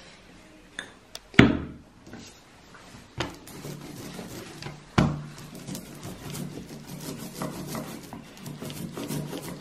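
Hand ink roller (brayer) being rolled back and forth over tacky printing ink on an inking plate, a continuous sticky rasping rub in quick strokes. It is preceded by a few sharp knocks as the roller and ink are handled on the wooden board, the loudest about a second and a half in.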